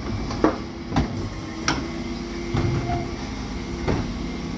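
Dennis Elite 6 refuse truck running with its Terberg OmniDEL bin lift tipping and emptying a wheelie bin: a steady machine hum with four sharp knocks as the bin is shaken out and lowered.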